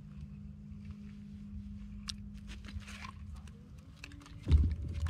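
An ice fishing rod and reel are handled while a hooked fish is reeled up through the ice. Scattered light clicks and crackles sit over a low wind rumble and a steady low hum that stops about three and a half seconds in. A loud low thump comes near the end.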